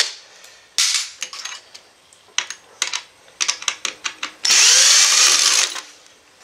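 Cordless drill-driver backing out the screws that hold a laser printer's drive motor to its metal frame. It gives a short spin about a second in, then light clicks and taps of metal parts, then a longer run of a little over a second about four and a half seconds in as the last screw comes free.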